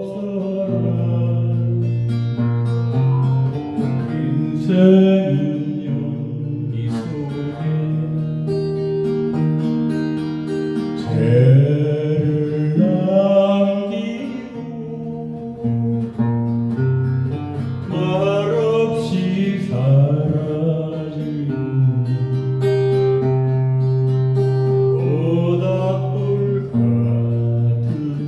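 Acoustic guitar playing a slow strummed and picked accompaniment, with a singing voice coming in for a few sung phrases.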